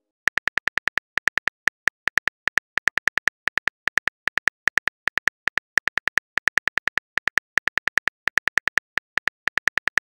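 Smartphone on-screen keyboard key-click sound effect, one short click per letter as a text message is typed out. The clicks come in a quick, uneven run of about six a second, with brief pauses between bursts.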